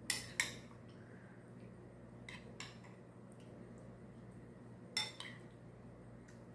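Metal spoon clinking against a ceramic bowl as stew is scooped out: three pairs of light clinks, near the start, a little over two seconds in, and about five seconds in.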